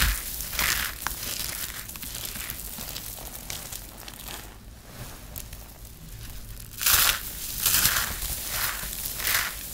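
Dry, crispy shredded soap crunching and crinkling as hands squeeze and crumble it, in a run of separate crunches. It goes quieter for about two seconds in the middle, then loud crunches start again about seven seconds in.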